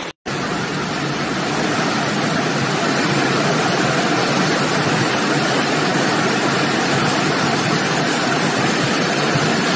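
Steady rush of fast-flowing floodwater: a dense, even noise that cuts out for a moment right at the start.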